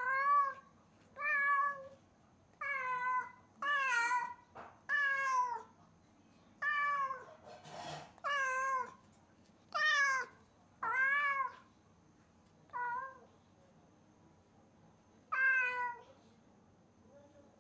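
Domestic cat meowing loudly and repeatedly, about a dozen drawn-out calls with a short pause before the last one, crying while left home alone. A brief noisy hiss-like sound comes between the calls about halfway through.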